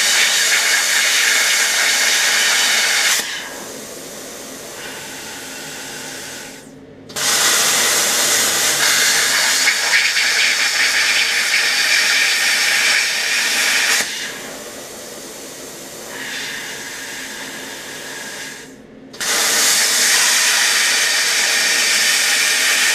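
Harbor Freight plasma cutter cutting 1/4 inch wall aluminum tubing: a loud, steady hiss of the cutting arc, broken twice by a few seconds of quieter air hiss and a short silence before the arc relights, about 7 and 19 seconds in.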